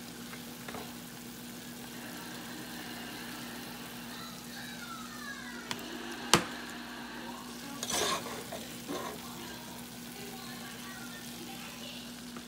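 A metal serving spoon knocking against the pot and plate as fettuccine is dished up: one sharp clink about six seconds in and a smaller clatter near eight seconds. Under it runs a steady low hum and a faint hiss.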